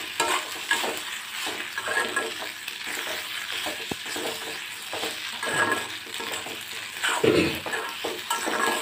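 Macaroni pasta being stir-fried in an iron kadai: a metal spoon scrapes and tosses it in irregular strokes over a light sizzle, with one heavier scrape near the end.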